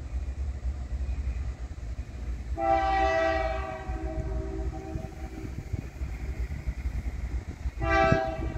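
Nathan K5H five-chime air horn on a GE AC44CW locomotive sounding for a grade crossing: one long chord of several steady tones lasting about three seconds, then a second blast starting near the end, over a low steady rumble.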